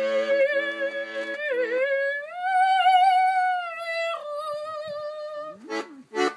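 A woman singing a French chanson in a clear voice, holding long notes, with piano accordion chords sounding under her for about the first two seconds. The voice then carries on alone over the song's closing held notes and stops, with a couple of short vocal sounds near the end.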